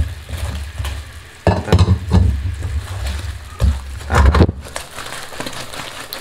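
Fried glutinous-rice cheese cakes being stirred with a metal spatula in hot sugar syrup in a nonstick wok: a steady sizzle, with several loud knocks and scrapes of the spatula and cakes against the pan in two clusters, about one and a half seconds in and again around four seconds in.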